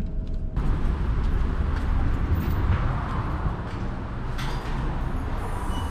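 Steady low rumble of wind on the microphone and traffic outdoors. There is a brief clack about four and a half seconds in.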